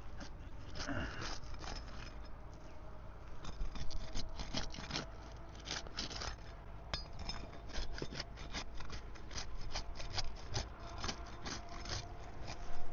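Steel flat bar being worked under asphalt shingles, breaking their sealant strips. It makes an irregular run of short scrapes and clicks as the bonded shingle tabs are pried loose from the course beneath.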